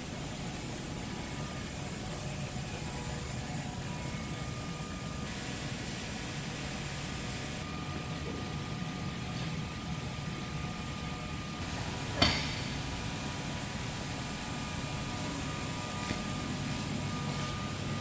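Steady hum and hiss of running climate test chamber and air-handling machinery, with one sharp knock about twelve seconds in.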